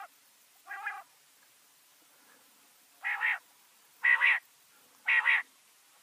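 Common quail calls, a recorded quail lure call: a softer call about a second in, then after a pause three louder, sharper calls about a second apart.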